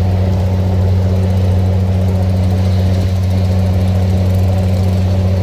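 Boat engine running steadily at constant speed, an even low drone.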